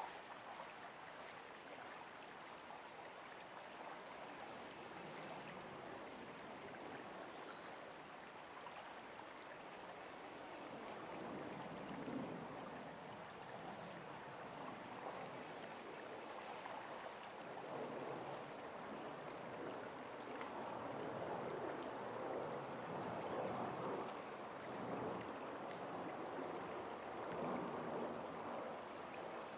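Water of Holmes Run, a creek, rushing and babbling in a steady wash that grows louder in the second half.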